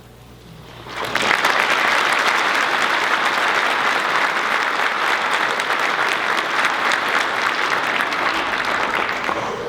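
Audience applauding: dense clapping that swells in about a second in, holds steady and dies away near the end.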